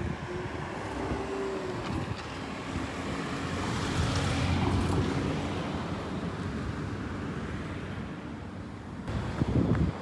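A motor vehicle passing by: its engine and tyre noise swells to a peak about four seconds in and then fades, with a steady engine tone that drops in pitch as it goes past.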